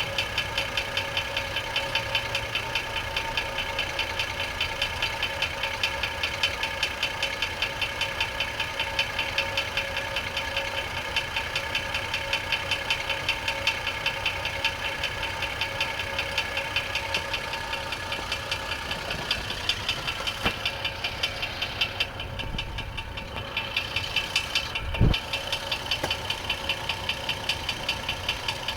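2004 GMC Envoy's 4.2-litre inline-six idling with the transmission removed, with a steady rhythmic knock. The owner has ruled out the flexplate, harmonic balancer and rod bearing play, and suspects a wrist pin bearing or something in the head. A single low thump near the end.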